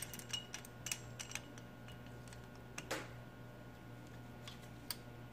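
Faint metal clicks and clinks of small open-end wrenches being fitted onto and working an adjustable pushrod, with a steady low hum underneath. The clicks come in scattered groups, most in the first second and a half and again about three seconds in.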